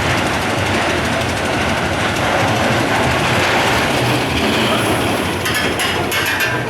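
Wild Cat steel roller coaster train running along its track, a steady rumble of wheels on rail, with a quick run of sharp clicks and rattles near the end.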